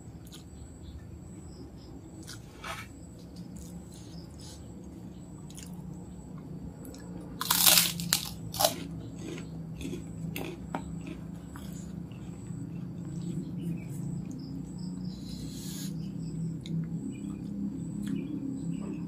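A person eating by hand, chewing with small mouth clicks. A cluster of loud, crisp crunches comes about seven to eight seconds in, as of biting into a kerupuk cracker, and a shorter crackle follows later.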